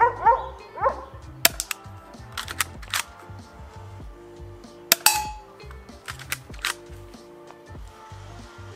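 Airsoft pistol firing a string of single shots, about ten sharp snapping cracks at irregular intervals. One crack about five seconds in is followed by a short ringing tone. Background music plays throughout.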